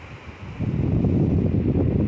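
Soft hiss of sea surf, then about half a second in a loud, fluttering low rumble sets in suddenly: wind buffeting the microphone on the shore.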